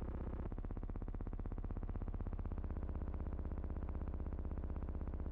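A steady, buzzy electronic drone with a fast even pulse, like synthesizer background music. Its tones shift about half a second in.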